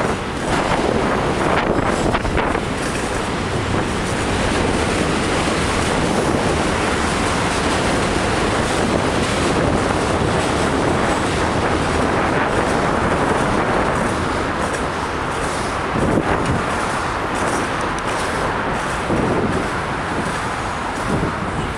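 Steady rushing wind noise on the microphone of a camera riding along on a moving bicycle, mixed with the general rumble of traffic.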